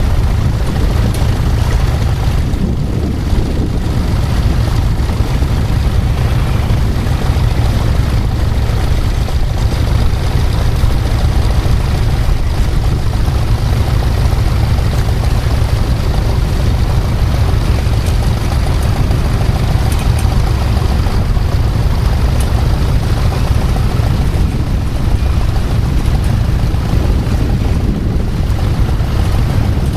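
Tractor engine running steadily with a low rumble.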